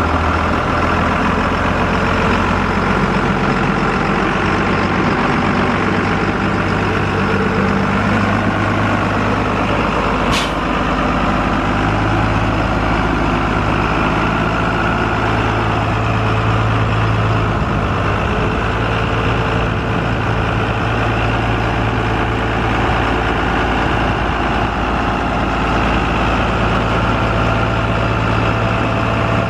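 JCB Fastrac tractor's diesel engine idling steadily.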